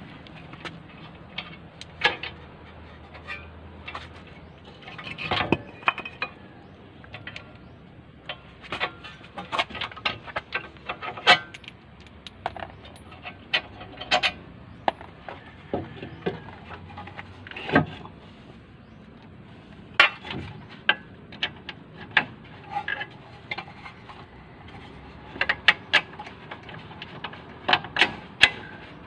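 Irregular sharp metallic clinks and clicks of front disc brake parts being handled and fitted: caliper, caliper bracket and brake pads knocking against each other and the rotor, with a few louder clacks now and then.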